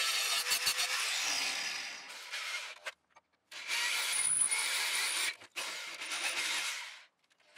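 Angle grinder grinding the steel of an old iron tool head, fading away over the first three seconds. After a short pause, an electric drill bores a hole through the tool's steel socket in two runs, with a brief stop about five and a half seconds in, and stops near the end.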